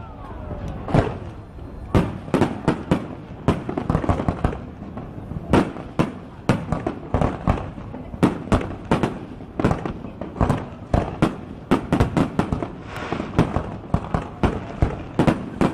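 Aerial fireworks going off in a dense, irregular barrage of sharp bangs, several a second, with smaller crackles between them.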